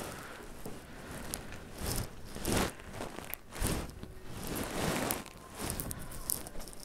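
A series of short rustling, scuffing noises, about five in all, as a handheld phone is carried and moved about.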